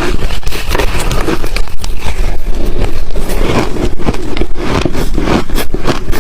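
Ice being chewed close to the microphone: a rapid, continuous run of loud crunches and cracks as the ice is bitten and ground between the teeth.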